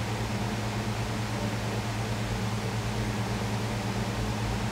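Steady low hum and hiss of a running fan, unchanging throughout.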